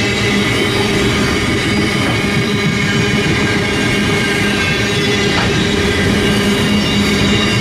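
Container freight train wagons rolling past at close range: a steady rumble of wheels on rail, with a continuous ringing squeal from the wheels.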